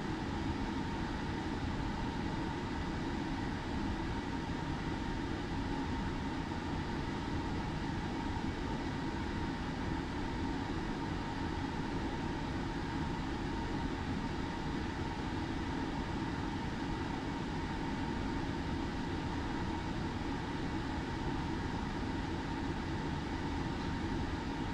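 Steady background noise: an even hiss with a faint constant hum, unchanging throughout and with no distinct events.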